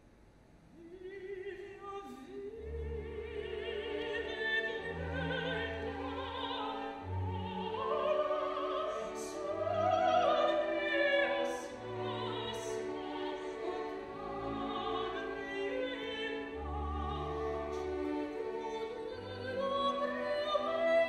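Opera orchestra with an operatic female voice singing over it, the music coming in softly about a second in and swelling.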